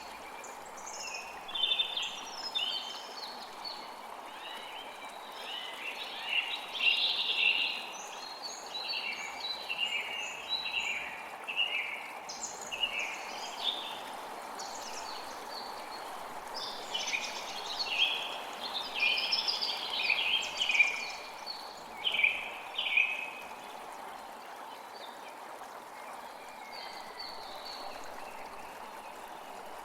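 Creek water flowing steadily, with forest birds chirping and twittering over it in quick runs of short high notes. The birdsong thins out over the last several seconds, leaving mostly the water.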